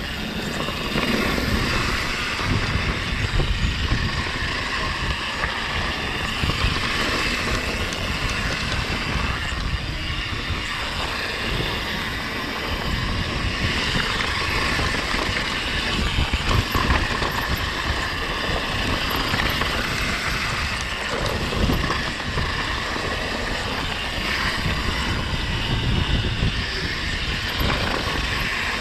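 Mountain bike riding fast down a dirt bike-park trail: a steady rush of wind and tyre noise, with frequent low knocks and rattles as the bike goes over bumps.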